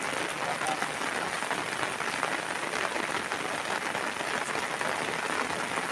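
Steady heavy rain: a dense, even patter of drops on plastic rain ponchos and surrounding vegetation.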